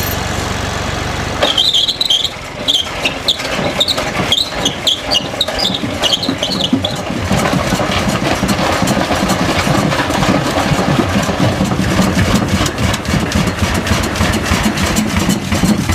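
Large engine being started: high squeaks and uneven firing at first, then the running settles into a denser, steadier knocking beat.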